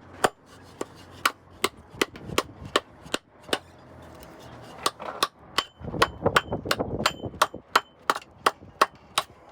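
A hammer striking a metal fitting over and over, about two to three blows a second, with a brief pause in the middle before the blows resume a little faster; some blows leave a short metallic ring. It is an attempt to knock a sailboat's backstay fitting free of its radar mount, which does not come loose.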